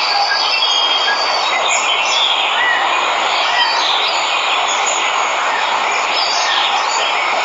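Steady rush of a waterfall, with many birds chirping and whistling short notes over it.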